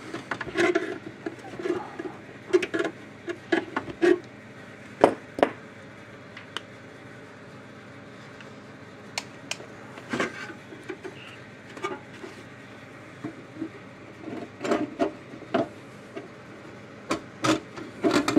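Handling noise of a fence charger being reassembled: irregular clicks, knocks and rubbing of its metal case, battery and parts against each other and the workbench, with a few sharper knocks about five seconds in and again near the end.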